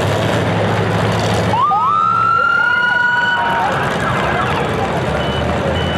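Demolition derby car engines running, then a high wailing tone that rises sharply about one and a half seconds in and holds for a couple of seconds, with a second shorter wail over it. Steady, evenly spaced beeping starts near the end.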